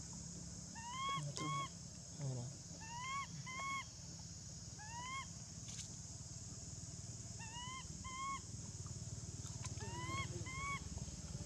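Baby long-tailed macaque cooing: short, clear calls that rise and then dip, mostly in quick pairs, repeated every couple of seconds over a steady high hiss.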